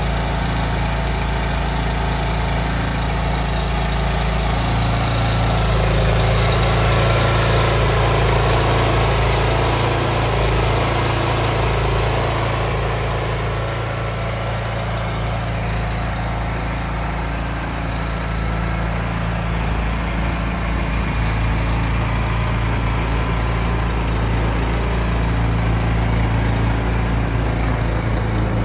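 Honda GX390 single-cylinder four-stroke gas engine on a water sprayer skid, running steadily.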